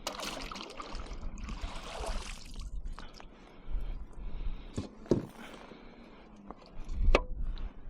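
Handling noises aboard a fishing kayak: water splashing and dripping, rustling, and a few sharp knocks about three, five and seven seconds in, as a caught redfish is handled for measuring.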